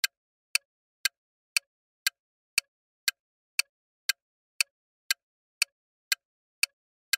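Countdown timer sound effect: sharp, even ticks, two per second.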